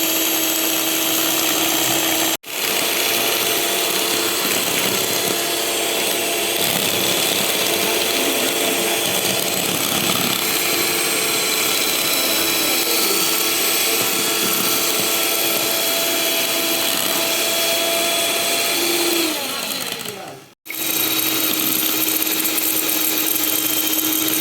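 Electric hand blender running steadily, beating eggs and sugar into a frothy cake batter base. The sound breaks off for an instant about two seconds in, and again near the end, where the motor winds down first.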